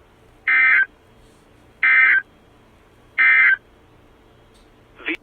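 Emergency Alert System end-of-message signal: three short, identical bursts of digital data tones about a second apart, marking the end of the alert. A brief blip follows near the end.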